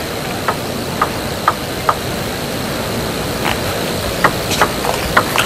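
Table tennis ball bounced four times, about half a second apart, while a player readies a serve; then a rally of sharp ball strikes on bats and table from about three and a half seconds in. A steady arena crowd murmur runs underneath.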